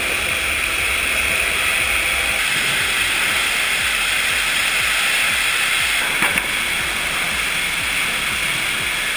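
Steady rushing noise of sawmill processing, with a single short knock about six seconds in.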